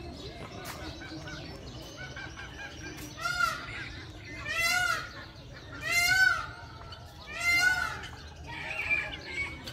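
A large fowl calling loudly four times, about a second and a half apart, each a short cry that rises then falls. Fainter small-bird chirps come before the calls.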